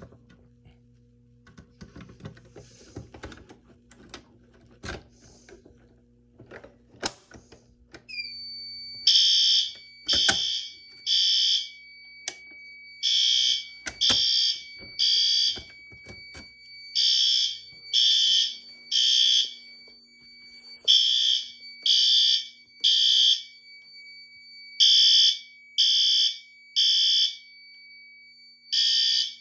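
A fire alarm pull station is activated after a few clicks and knocks, and about eight seconds in the fire alarm horns start sounding the three-pulse temporal (code-3) evacuation pattern. They give three loud blasts about a second apart, a short pause, then three more, repeating, over a steady high tone that begins just before the first blast.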